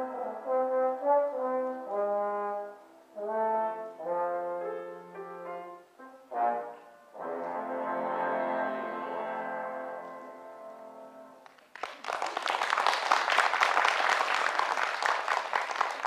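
Trombone with piano accompaniment playing the closing blues phrases, ending on a long held note that fades away. About twelve seconds in, audience applause starts and runs on.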